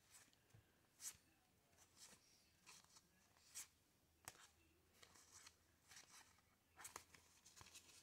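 Faint rustling and soft flicks of paper board-game cards being leafed through by hand, one card slid off the stack about once a second.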